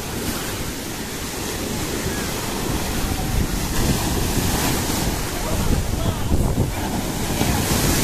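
Rough sea surf breaking on a sandy shore: waves crashing and foam rushing over the sand, growing louder about three seconds in as bigger waves break, with wind buffeting the microphone.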